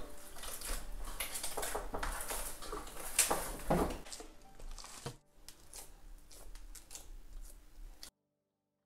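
Hand kneading and pressing oiled wheat-flour dough in a stainless steel bowl: irregular soft squishes and light knocks of the dough and hand against the metal, busier in the first few seconds and fainter later, cutting out just before the end.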